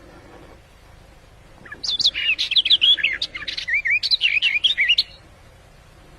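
A small songbird's fast warbling song, a run of varied chirps and whistled notes lasting about three seconds, starting about two seconds in. It is the local 'fig bird' (Abu Zuraiq) call recording used as a lure for bird hunting.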